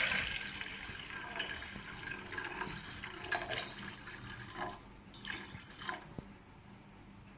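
About half a litre of water being poured into a cooking vessel, the stream loudest at first and tapering off into a few drips before it goes quiet.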